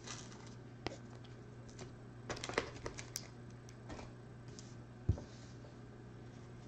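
Glossy chromium trading cards being handled by hand, with light clicks and slides as the cards are moved and set down on a pile. There is a cluster of ticks near the middle and a soft thump about five seconds in.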